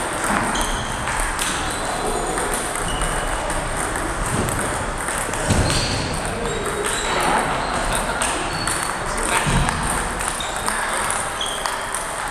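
Table tennis balls clicking off paddles and tables, with many short, irregular pings from the rally and from neighbouring tables, over background chatter.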